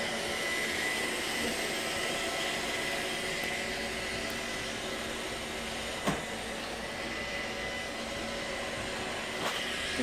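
iRobot Roomba robot vacuum running with a steady hum of its motors and brushes over a faint high steady tone. A single short knock about six seconds in.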